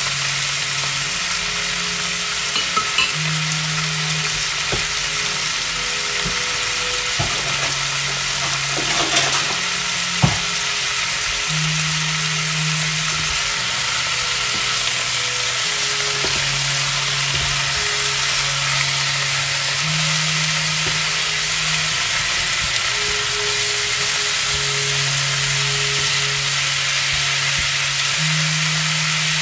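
Pork belly cubes sizzling in a frying pan as they are stirred with a silicone spatula, with a sharp knock about ten seconds in. Underneath runs a low hum that shifts pitch every second or two.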